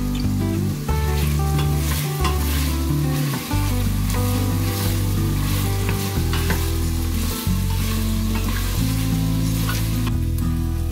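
Beef cubes sizzling and frying in hot oil in a stainless steel pot while a wooden spoon stirs them, with crackles and scrapes; the meat is being browned on all sides. Background music plays underneath.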